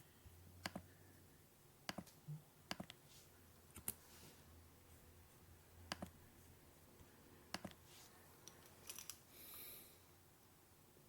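Faint, scattered sharp clicks, about eight of them at irregular intervals of one to two seconds, with a brief soft hiss near the end.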